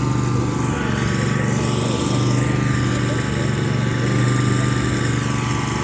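Riding lawn mower engine running steadily at a constant speed while mowing.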